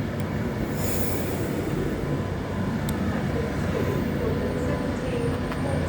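Electric train standing at the station platform, its equipment giving a steady hum and rumble, with a brief high hiss about a second in.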